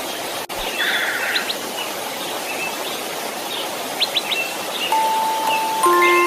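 Steady white-noise hiss with birds chirping over it. Soft, sustained chime notes of a lullaby come in about five seconds in.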